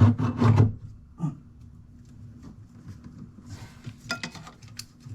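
A loud clunk and clatter of metal parts at the start, a smaller knock about a second later, then a run of sharp metallic clicks and ticks near the end, as an automotive A/C compressor is worked into its mounting bracket. A steady low hum runs underneath.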